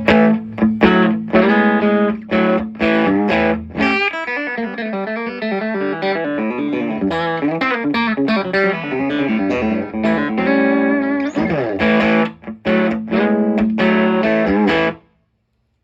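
Fender Cabronita Telecaster played through a Fender '57 Custom Deluxe tweed amp with a brand-new WGS G12Q speaker: strummed chords and single-note runs. The playing stops abruptly near the end.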